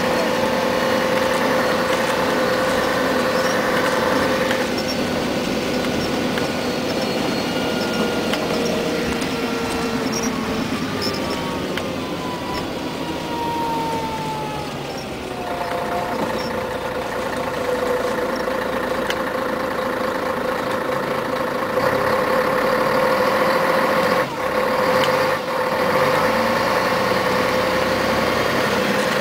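Cabin sound of a 1994 Scania CN113CLL city bus under way, its diesel engine and drivetrain running with a steady whine. About a third of the way in the whine falls in pitch and the sound eases off as the bus slows, then it grows louder again as the bus pulls away, with two brief drops near the end.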